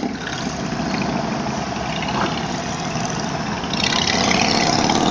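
Harley-Davidson motorcycle's V-twin engine running as the bike rolls along at low speed, under a steady rush of wind noise. A short knock right at the start comes as the bike goes over a speed bump, and the rushing grows a little louder near the end.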